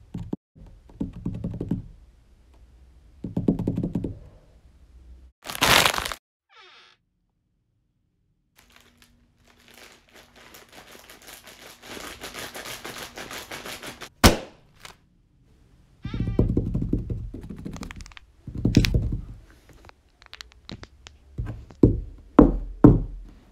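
A series of dull thuds and knocks, with a sharp crack partway through after a stretch of steady hiss.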